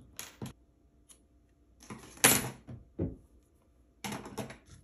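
Scissors and sewing tools being picked up and handled on a wooden tabletop: a few short clicks and rustles, the loudest about two seconds in.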